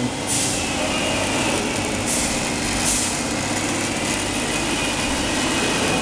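Steady factory machinery noise: a broad mechanical hum with a constant drone, and two short bursts of hiss about two and three seconds in.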